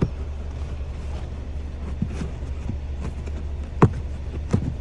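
Small plastic trim access cover being pressed back into place: a few light clicks and taps, the sharpest two near the end, over a steady low background hum.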